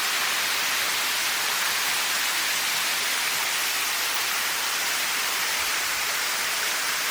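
Steady rush of water pouring over a dam's waterfall, an even hiss with no breaks.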